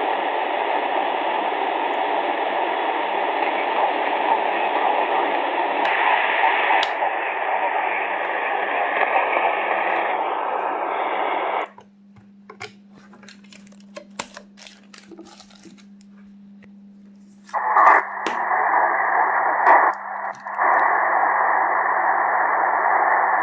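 Portable shortwave receiver's audio tuned to a weak single-sideband signal: mostly dense hiss, cut off at about 4 kHz. About halfway through it drops out to a few clicks and a steady low hum, then after about six seconds comes back as a narrower, duller hiss, filtered off above about 2.5 kHz.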